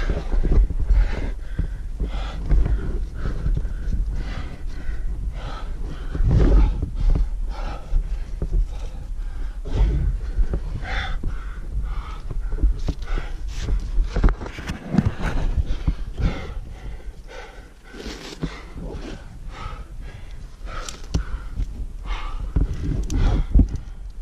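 A climber's hard, rapid breathing, panting in and out about once a second with a brief easing about two-thirds through: the labour of climbing rock with a heavy pack at about 6000 m altitude.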